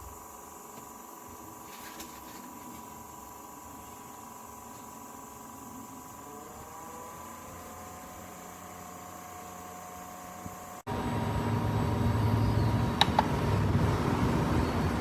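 Small fan motor of a personal mini air cooler running steadily, its pitch rising and settling about six seconds in as it speeds up. After a sudden cut near eleven seconds it runs louder, with more rushing air and a low hum.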